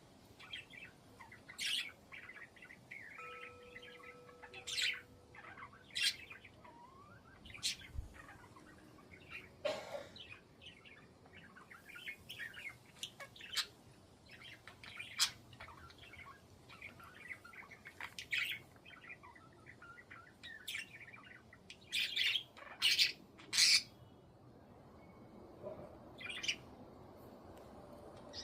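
Budgerigars chirping and chattering, with short sharp calls coming irregularly, some louder squawks bunched together about three quarters of the way through.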